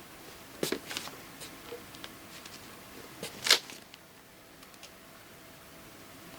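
Scattered short clicks and scrapes from close handling, the sharpest about three and a half seconds in.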